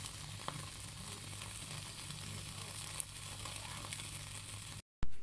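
Tandoori-marinated chicken pieces on a skewer sizzling over an open gas-stove flame, a steady hiss with a low hum under it. A few sharp crackles come about half a second and three seconds in. The sound cuts off suddenly shortly before the end, followed by a brief knock.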